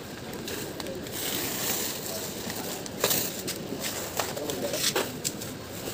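Plastic packing wrap and bubble wrap rustling and crinkling, with several sharp crackles in the second half, as a motorcycle is wrapped for shipping.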